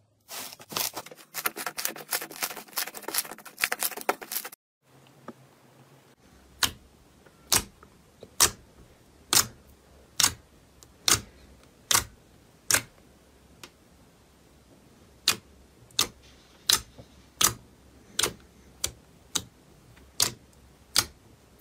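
Hands pressing and squishing thick white slime, giving a dense run of crackling little pops. After a short break, a finger pokes clear slime in a plastic tray, each poke making one sharp pop, about one a second.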